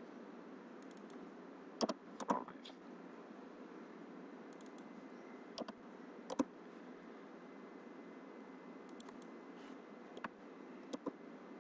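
Computer mouse clicks and keyboard key presses: scattered sharp clicks, some in quick pairs, over a steady faint hiss.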